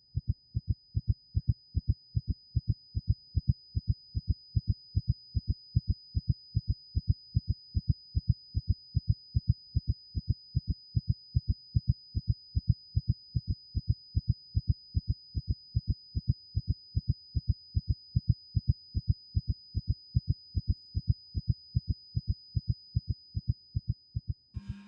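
Heartbeat sound effect: a steady, even lub-dub double beat repeating throughout. Over it runs a thin, steady high-pitched ringing tone that begins at the gunshot, the ear-ringing effect that follows a shot.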